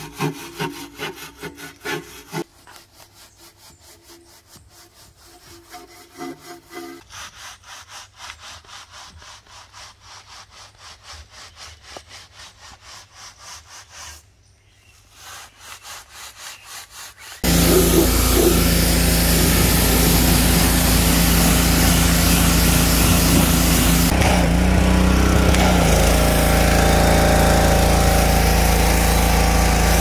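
A hand brush scrubbing a dirty alloy wheel rim in quick, even back-and-forth strokes, several a second. About two thirds of the way through this cuts abruptly to a pressure washer running loud and steady, spraying snow foam through a foam cannon onto the car.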